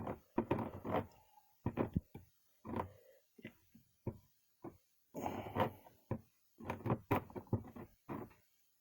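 Irregular short knocks, taps and scrapes of work on a plastic bumper, separated by quiet gaps, as a hot plastic welder melts repair mesh into the crack.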